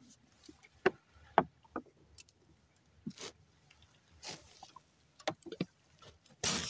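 Scattered sharp knocks on the wooden hull of a small boat, with short rustling noises, as a fishing handline is worked by hand; the loudest is a rustling burst near the end.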